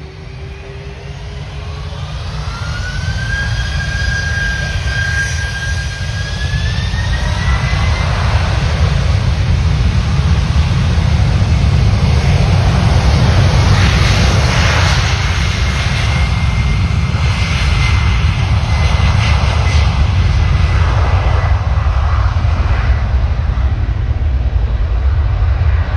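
Cargojet Boeing 767 freighter's twin turbofans on the takeoff roll. A whine rises in pitch over the first several seconds as the engines spool up, then the sound grows into a loud, steady jet rumble with crackle as the aircraft accelerates down the runway.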